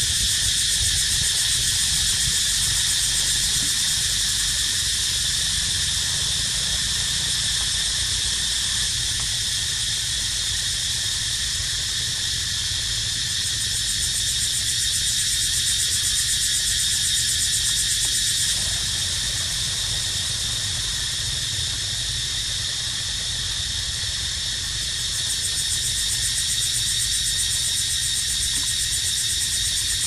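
Cicadas singing in a loud, steady, high-pitched chorus with a fast pulsing texture. It softens a little past the middle and swells again near the end, over a low rumble.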